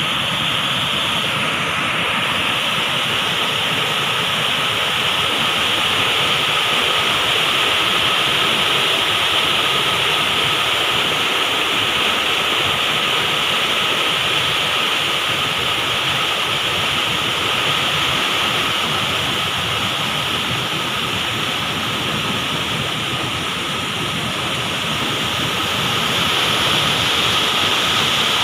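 Floodwater pouring over a reservoir spillway weir: a steady, loud rush of churning water.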